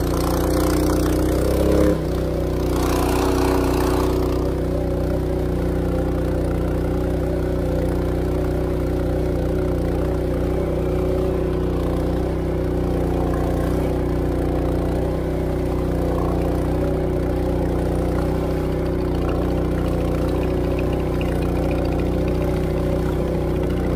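Honda GX200 single-cylinder four-stroke engine on a longtail (ketinting) boat drive, running steadily under way with a wooden jukung boat at speed. Its note dips slightly about two seconds in, then holds even.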